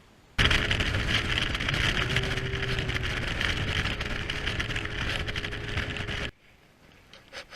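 A motor running steadily with a hum and a hiss, switching on suddenly about half a second in and cutting off abruptly about six seconds later.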